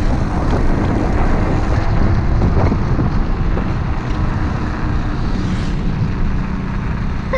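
Steady wind buffeting on the microphone, with road rumble, while riding an electric scooter.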